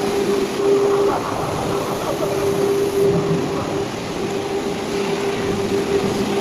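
Robotic arc welding in a steel-fabrication workstation: a steady crackling hiss with a constant hum underneath.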